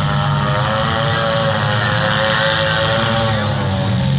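Demolition derby cars' engines running hard and revving, several at once, with a wavering higher whine over the low engine note.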